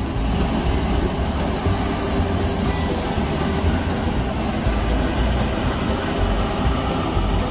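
Tractor engine running steadily under load while it pulls a multi-section rotary cutter through tall grass: a continuous low drone.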